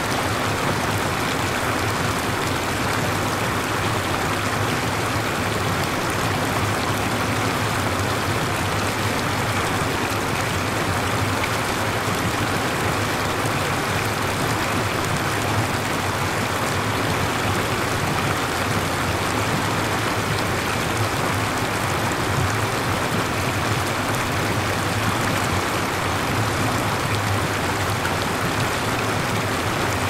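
Flowing water: a stream rushing steadily and evenly, with no breaks.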